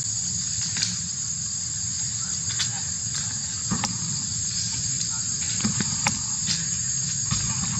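Steady, high-pitched insect chorus in the forest, with scattered light crackles of dry leaves as a baby macaque moves through them.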